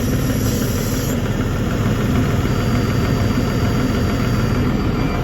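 New Holland TM140 tractor's diesel engine idling steadily. A faint thin high tone comes in about halfway through.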